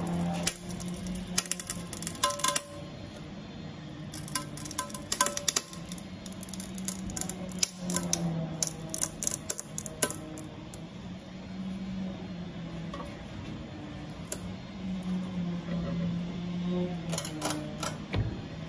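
Hand-lever bending machine bending a metal plate, giving a series of sharp metallic clicks and creaks in clusters, over a steady low hum.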